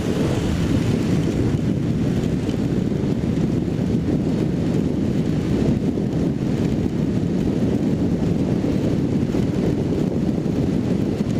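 Steady wind rush on the microphone of a Kawasaki Z750 motorcycle riding at highway speed, with the motorcycle's running noise underneath.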